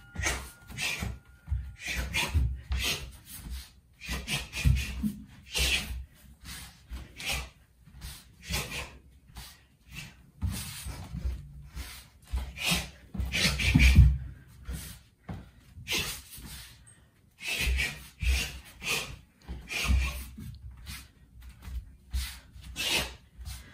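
Sharp hissing exhales, one with each strike, as a Muay Thai fighter shadowboxes punches and front kicks (teeps), with bare feet thudding and shuffling on a wooden floor in an irregular rhythm. A steady electronic tone marks the start of the round for about the first two seconds.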